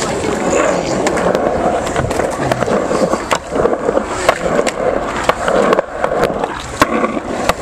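Skateboard wheels rolling on concrete, a steady rumble broken by many scattered sharp clacks.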